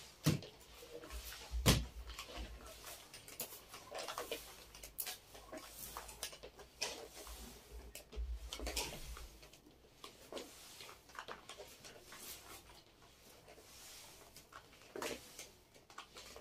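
Household handling sounds: scattered light knocks and clicks of objects being moved and set down, with two sharper knocks near the start and some low rubbing and handling noise.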